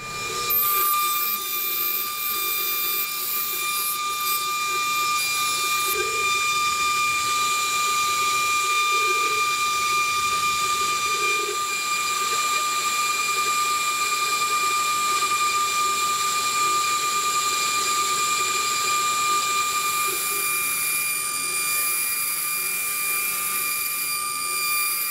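High-speed milling spindle with a small end mill cutting a pattern into a brass plate: a steady whine with high cutting hiss. It starts abruptly about half a second in.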